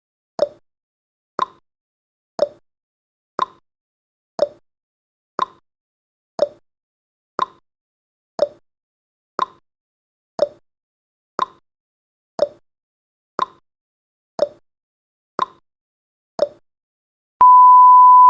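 Countdown timer's clock tick-tock sound effect: one short tick a second, alternating slightly higher and lower. About a second before the end, a steady electronic beep starts as the countdown runs out.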